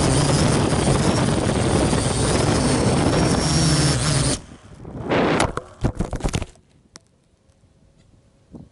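Parrot AR.Drone 2.0 quadcopter's rotors buzzing loudly in flight, then cutting out suddenly about four seconds in. A quick run of knocks and clatter follows as the drone crashes and tumbles over the grass, and it ends upturned.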